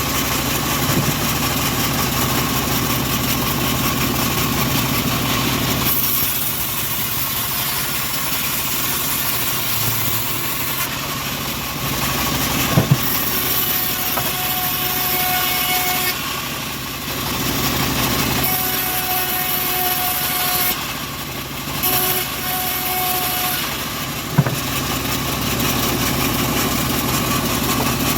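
Engine of a homemade bandsaw sawmill running steadily, its tone shifting a few times, with two sharp knocks, one about halfway through and one near the end.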